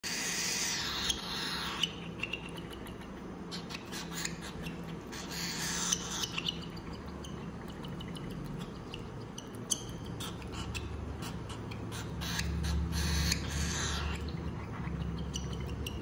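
A 30-day-old cockatiel chick makes raspy begging calls in several short bursts while it feeds on hand-feeding formula from a spoon, with light clicks in between.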